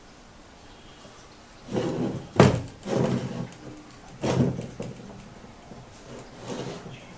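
Brass candlestick telephone being lifted, turned and set back on a tabletop: a series of scrapes and knocks of its base against the table, the sharpest about two and a half seconds in.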